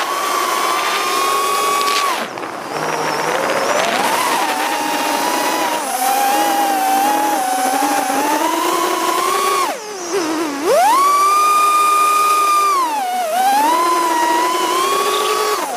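Emax Tinyhawk Freestyle 2's small brushless motors whining, heard from on board, the pitch rising and falling as the motor speed changes. About ten seconds in the whine drops sharply to a low pitch and then climbs straight back up.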